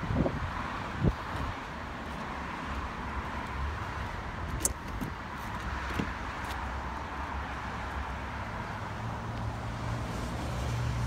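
Steady outdoor background noise with some wind on the microphone, broken by a couple of knocks near the start and a few sharp clicks midway as the Aston Martin DB9's driver door is unlatched and swung open. A low hum builds near the end.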